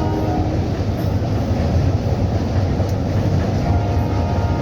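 Express train running across a rail bridge: a steady, loud rumble of wheels and coaches on the track.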